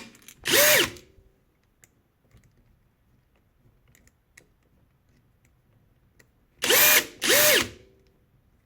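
Cordless rivet gun's electric motor running in short bursts while pulling a 6 by 16 mm steel rivet. There is one run about half a second in, then two back to back near the end, each rising and falling in pitch.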